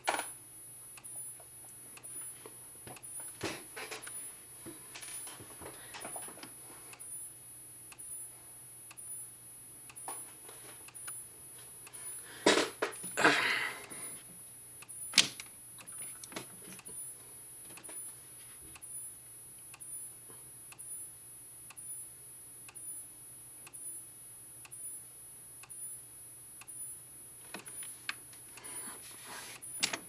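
Fire-alarm strobe flashing about once a second: a faint, steady high-pitched whine from its charging circuit, with a soft tick at each flash. About halfway there is a rustle of movement, then a single sharp click.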